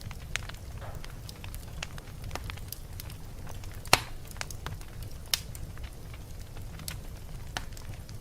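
Wood fire burning in a fireplace: a steady low rumble of flame with scattered crackles and pops, one sharp pop loudest about halfway through.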